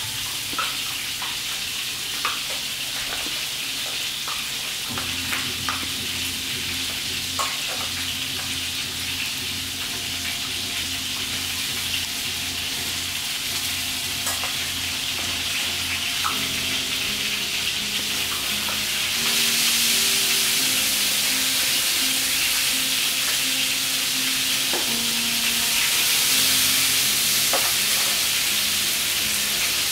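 Steady hiss, louder in the second half, over scattered small crunches and clinks of a puppy eating dry kibble from a stainless steel bowl.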